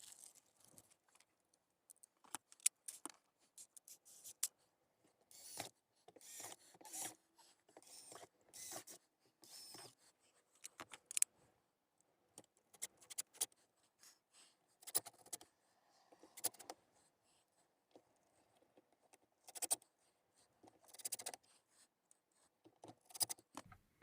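Irregular, faint clicks, scrapes and rattles of small parts and hand tools being handled, spread unevenly with short pauses between them.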